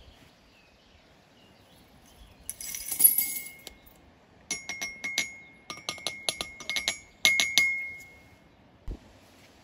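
Shards of boron oxide glass tipped from a glass beaker into a metal mortar. About two and a half seconds in there is a short rattling rush, then a run of sharp clinks as pieces hit the mortar, the metal ringing with a clear high tone after the louder ones.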